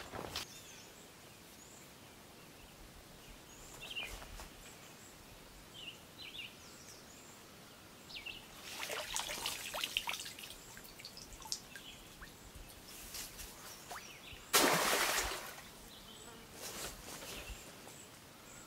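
Crayfish trap splashing into a lake as it is thrown in, one loud short splash about three-quarters of the way through, with smaller splashes and dripping water from handling the trap at the shore before and after it. A few faint bird chirps.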